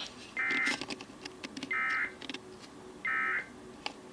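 Three short bursts of EAS digital data tones from a NOAA weather radio broadcast, evenly spaced a little over a second apart: the end-of-message code that closes the alert test. Faint scattered clicks between the bursts.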